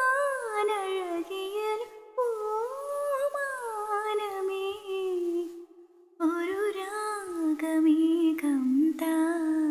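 A woman singing a slow Malayalam song unaccompanied, in long held and gliding notes. There are three phrases, with a brief breath about two seconds in and a longer pause just before the six-second mark.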